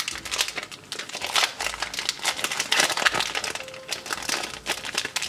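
Wrapper of a military ration chocolate bar being pulled open and unfolded by hand: dense crinkling and crackling of the packaging, busiest in the middle.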